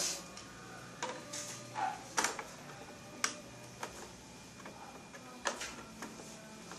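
Irregular clicks and knocks of computer hardware being handled and fitted into a desktop PC case during assembly.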